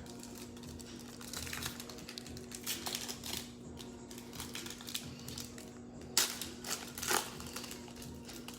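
Trading card pack wrapper being handled and opened: dense crinkling and rustling with quick clicks, and two louder crackles about six and seven seconds in.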